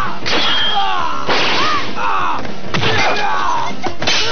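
Cartoon fight sound effects: a string of blows landing, about five in all, each with a yell from the fighters, over background music.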